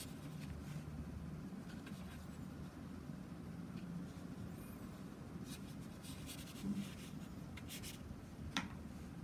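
Faint scratchy strokes of a paintbrush on textured watercolour paper, in short bursts mostly in the second half, over a low steady hum. A single sharp tick near the end.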